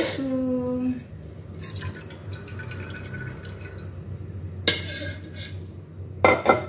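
Metal wok spatula knocking against a steel wok: one sharp clank about two-thirds of the way through and a quick cluster of clanks near the end, over the faint spitting of oil heating in the wok.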